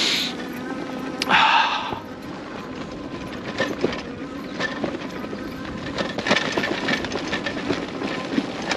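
Loaded Fiido T1 Pro e-bike being ridden over a rough dirt and grass track: a steady rumble of tyres and wind on the microphone, with frequent small knocks and rattles as it goes over bumps.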